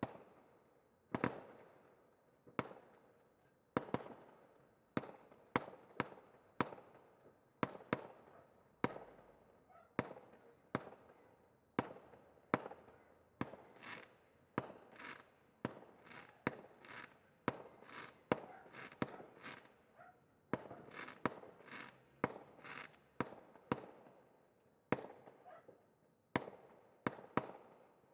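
Fireworks going off in a continuous series of sharp bangs, about one to two a second, each trailing off in an echo, with denser crackling between the bangs through the middle stretch.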